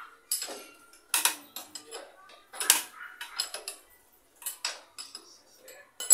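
Metal tools clinking and clanking against the motorcycle's rear wheel hardware as the rear wheel is loosened: sharp, irregular metallic hits with short ringing, five or so loud ones and smaller clinks between.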